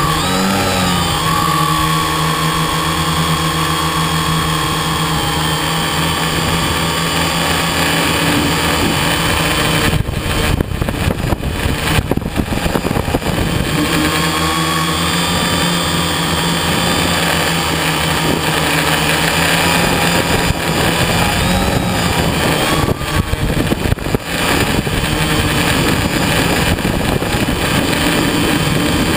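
Radio-controlled model aircraft engine heard from an onboard camera, running steadily in flight with wind rushing over the microphone. The sound turns rougher and more uneven twice, about ten seconds in and again a little past twenty seconds.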